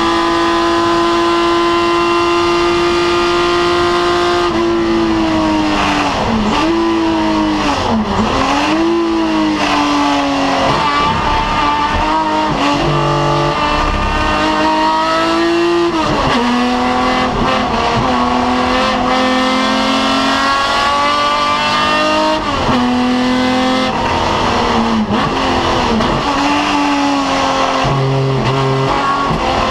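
BMW 3.0 CSL racing car's straight-six engine heard onboard, held at high revs for the first few seconds, then lifting off with quick throttle blips on the downshifts about six to nine seconds in. It then pulls up through the gears, with more sharp dips and rises in revs at each gear change.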